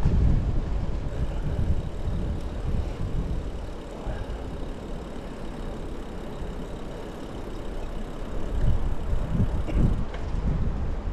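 Wind buffeting the microphone of a moving bicycle: a gusty low rumble, strong at the start, easing off midway and rising again near the end.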